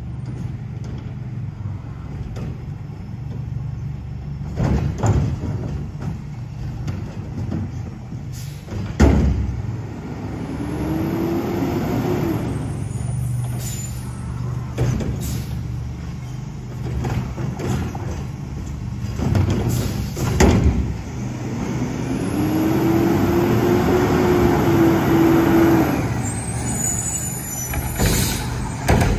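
Front-loader garbage truck with a Curotto-Can arm: the diesel engine runs steadily, and twice it revs up with a whine that rises and then holds as the hydraulics work. Several sharp metal clanks and bangs come in between, the loudest about nine seconds in.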